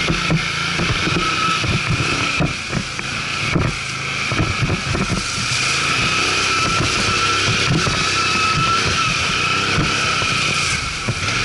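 ATV engine running under way, with a steady high whine over the engine note and wind on the microphone, broken by scattered knocks.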